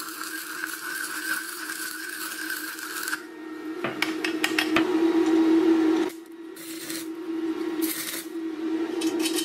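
Stick (arc) welding: the electrode's arc crackles and sizzles in spells that stop and restart, over a steady low hum.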